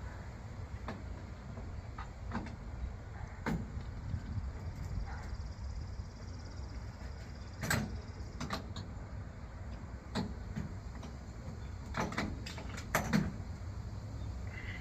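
Scattered metal clicks and clinks of wrench sockets and tools being handled and swapped, a few sharper knocks among them, over a steady low hum.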